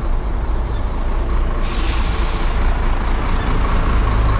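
Motor vehicle running with a steady low rumble and road noise, with a sharp hiss of about one second about a second and a half in.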